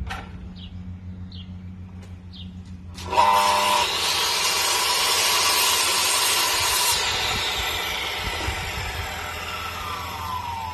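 Electric miter saw starting about three seconds in with a short motor whine, then the blade cutting through a thick timber beam for several seconds. After the cut the motor winds down with a falling whine.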